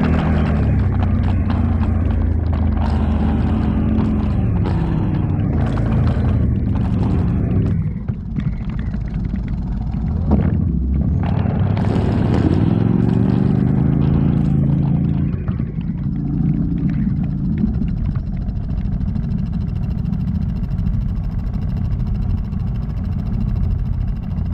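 ATV engine running and revving up and down, with knocks and clatter over the first half. It settles to a lower, steadier running for the last several seconds.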